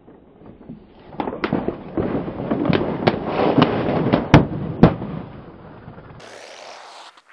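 Car tyre rolling over plastic soda bottles and balls and crushing them: dense crackling and crunching with many sharp bursting pops, the two loudest a little past the middle, then a short hiss near the end.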